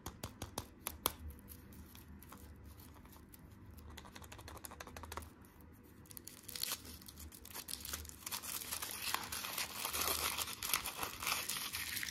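Thin foil wrapper of a chocolate surprise egg crinkling and tearing as fingers peel it off. A few sharp crackles come in the first second, and the crinkling grows denser and louder over the second half.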